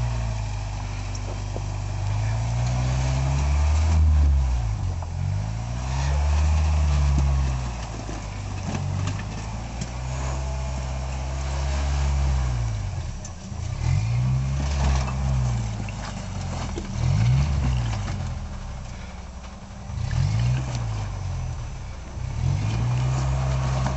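Lifted pickup truck's engine revving up and down again and again as the truck crawls over boulders, its pitch rising and falling every second or two.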